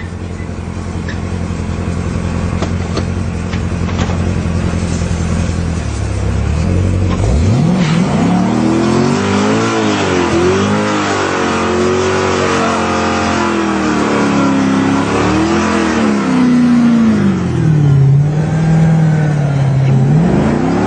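Chevrolet Corvette Z06's 7.0-litre V8 idling steadily, then revving up sharply about six seconds in. It is held at high, rising and falling revs through a smoky burnout with the rear wheels spinning.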